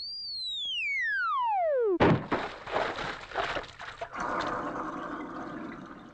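Cartoon sound effects: a whistle glides steadily down in pitch for about two seconds as something falls, then a big water splash hits all at once and trails off into sloshing and spattering water.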